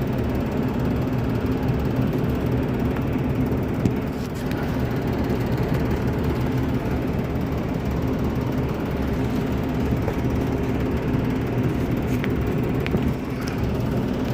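Gas furnace running with a steady low hum, with a few faint clicks.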